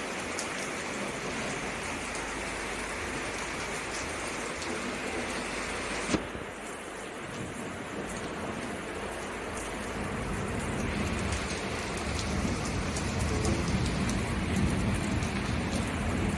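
Heavy rain falling, a steady hiss. A single sharp click comes about six seconds in, after which the rain sounds duller, and it grows louder and deeper over the last few seconds.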